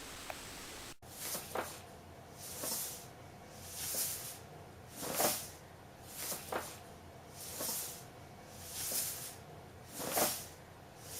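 An animal's rhythmic, hissing breaths: about eight, each a little over a second apart, starting after a sudden cut.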